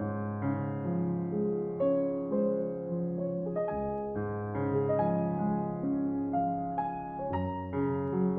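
Background music: a slow, gentle piano melody over held chords, notes changing about every half second.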